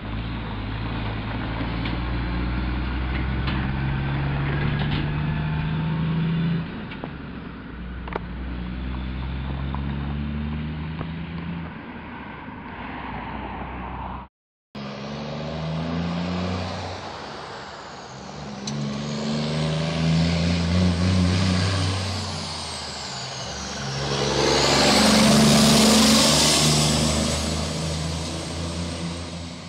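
Semi-truck diesel engines pulling away and accelerating through the gears: the engine note climbs, drops at each upshift and climbs again. After a sudden cut, another semi truck accelerates past, loudest about 25 seconds in, with a high whine over the engine.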